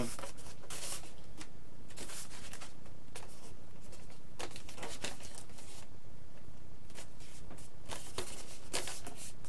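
Foam RC airplane wings, an E-flite Extra 300 3D's, being handled: scattered soft rubs, scrapes and light knocks as they are picked up, turned over and set against the carpeted table, over a steady low room hum.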